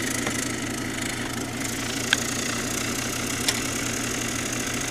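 Fidget spinner spinning at high speed, a steady mechanical whirring hum, with three short sharp clicks.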